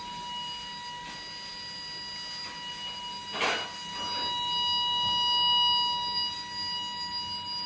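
EMS Smartcell fire alarm panel's built-in speaker sounding its continuous test tone: one steady, unbroken beep-like pitch held throughout, growing louder a little past halfway. A brief rustle about three and a half seconds in.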